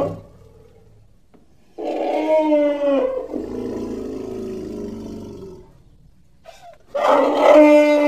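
Elephant calls: a loud, pitched call about two seconds in that falls slightly and trails off into a lower, rougher rumble. A second loud call starts near the end.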